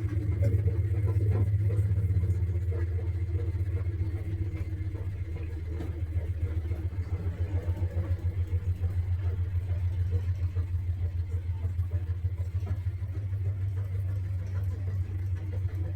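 Top-loading agitator washing machine running on a spin test, its motor giving a steady low hum. From about six seconds in, the hum takes on a fast, even pulsing.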